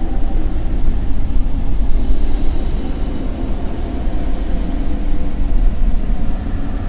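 Low, dark rumbling drone of a horror sound effect, with a faint high ringing tone about two seconds in.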